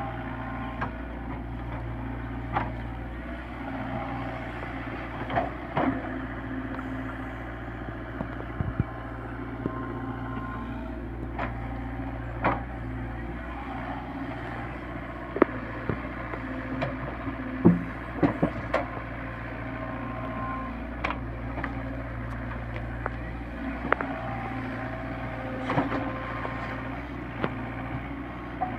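SDLG crawler excavator's diesel engine running steadily while it digs wet mud. Scattered short, sharp knocks and clanks from the working machine come through the whole time.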